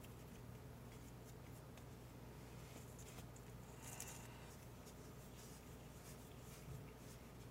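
Near silence with faint handling noises: soft rustles and light taps as fingers pull apart and press small pieces of candy dough and set them on the plastic kit packet, with a brief crinkle of the packet about four seconds in. A low steady hum sits underneath.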